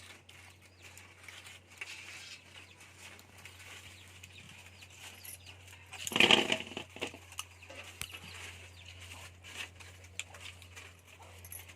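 A chicken squawks once, short and loud, about six seconds in, over faint scattered clicks and a low hiss.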